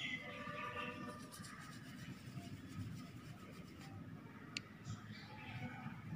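Quiet background ambience with a low, even rumble, faint bird chirps in the first second, and a single sharp click about four and a half seconds in.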